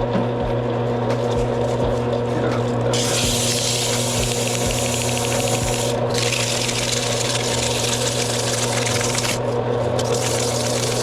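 Lathe running with a steady hum while sandpaper is pressed to the inside of the spinning grinder dog's bore to sand off rust. The scratchy sanding noise starts about three seconds in and comes in three stretches, with short breaks near six and nine seconds.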